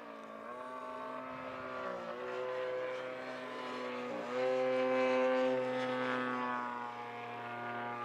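Model aircraft in flight, its AGM-30 30 cc single-cylinder two-stroke gasoline engine, quieted by a four-chamber Pefa RDL 30 muffler, running in on a break-in flight. A steady propeller drone with two brief dips in pitch, about two and four seconds in, louder after the second dip.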